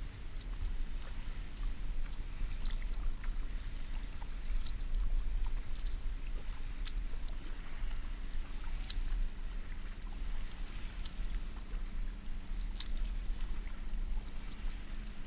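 Kayak being paddled through swells: a steady wash of water with a low rumble, and a sharp tick about every two seconds.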